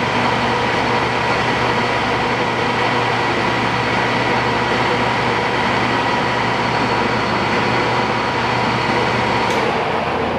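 Standard Modern 16-60 engine lathe running with its spindle at 160 RPM: a steady mechanical hum from the 7.5 HP motor and headstock drive, with a high steady whine. The whine fades near the end.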